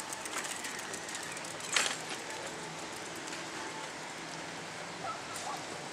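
Outdoor ambience: a steady hiss with a faint low hum, one sharp knock about two seconds in, and a few faint bird chirps near the end.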